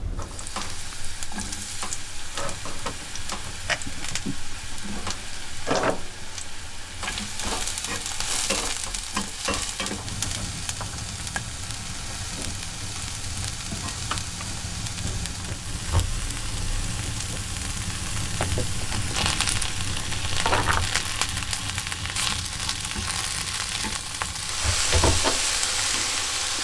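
Sliced eggplant, green beans, mushrooms and garlic sizzling steadily as they fry in a cast-iron skillet, with scattered clicks and scrapes as they are stirred.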